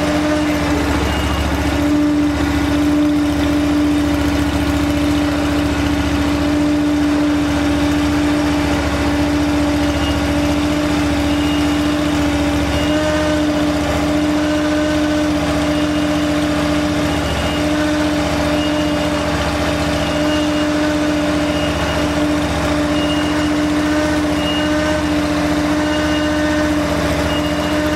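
YF450 mini skid steer loader's engine running steadily, with a constant whine held over the low engine rumble.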